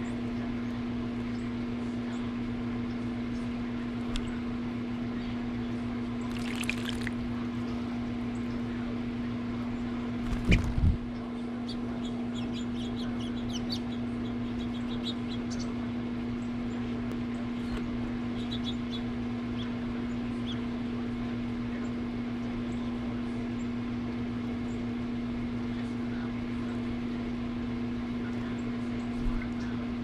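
A steady low hum over a faint trickle of water at a birdbath, with a brief splash about six seconds in and one loud knock about ten seconds in. Near the end an eastern bluebird splashes in the water.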